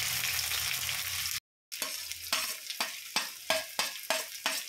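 Sliced onions and green chillies sizzling in hot oil in a kadai. After a short break about a second and a half in, a spatula stirs them, scraping the pan several times a second over the sizzle.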